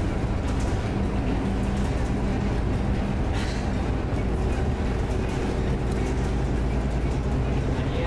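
Steady low rumble and hum of a running vehicle engine.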